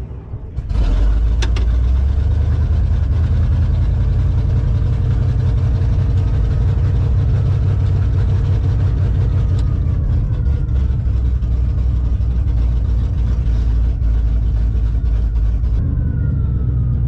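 International Harvester 915 combine's 345 International V8 running steadily from inside the cab, warming up just after being brought back to life after years of sitting. It gets louder about a second in, and turns a little duller near the end as it settles toward idle.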